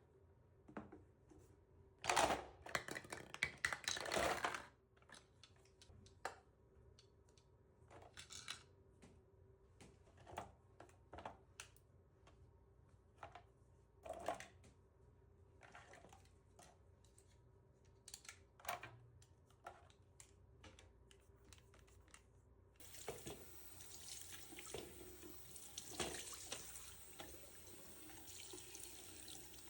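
Scattered knocks and clatter of things being handled, loudest in a cluster a few seconds in. About three-quarters of the way through, a sink tap is turned on and runs steadily into the basin.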